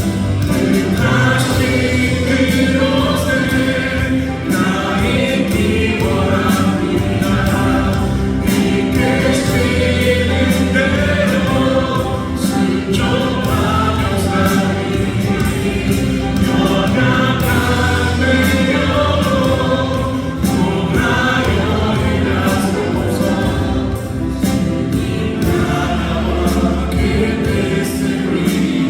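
Music with a choir singing, in a gospel style, over a steady beat.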